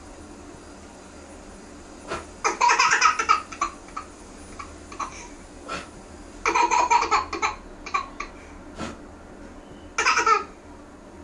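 Toddler laughing in three bursts: about two and a half seconds in, again around six and a half seconds, and briefly near the end.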